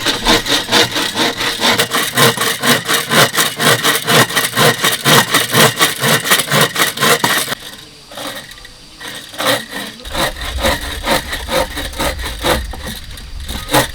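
A hand saw cutting through bamboo in quick, even strokes, about three a second. The sawing stops about halfway through, leaving a few lighter scrapes.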